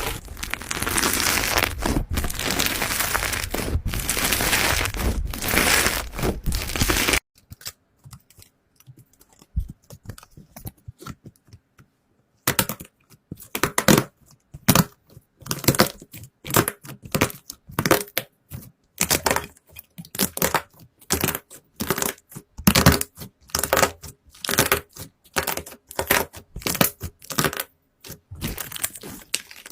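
Slime being worked by hand: a dense crinkling crackle for about seven seconds that stops abruptly. After a few near-quiet seconds it gives way to a run of quick, irregular clicks and pops.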